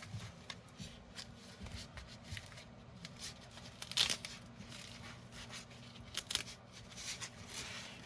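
Packaging and rolls of Velcro tape being handled and taken out of their box: irregular rustling, scraping and crackling with a few sharp clicks, the loudest about four seconds in.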